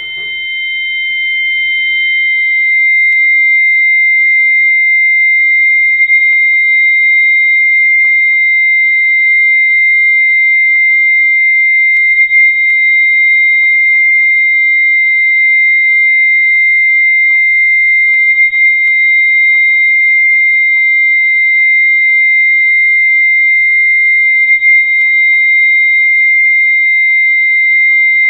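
Steady high-pitched electronic tone with a fainter, higher tone above it, swelling in over the first two seconds. A second, slightly higher tone fades out about three seconds in.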